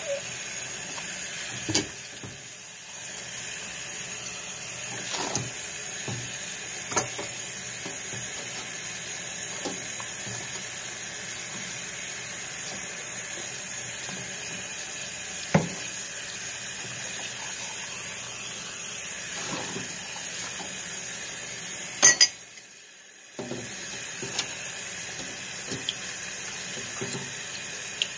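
Kitchen tap running steadily into a sink while dishes and a glass are washed by hand, with scattered clinks and knocks of dishware. Two sharp clinks about three-quarters of the way through are the loudest sounds, and the water hiss drops away for about a second right after them.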